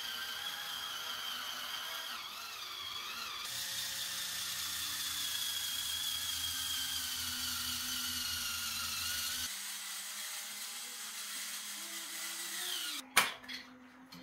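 Electric spin scrubber with a soft pad, its motor running with a steady high whine as it scrubs. The motor stops about a second before the end, and a few sharp knocks follow.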